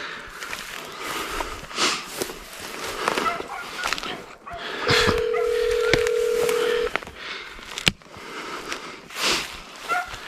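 A phone's ringback tone sounds once, a steady hum-like tone held for about two seconds midway through, as an outgoing call rings. Scattered rustles and knocks surround it.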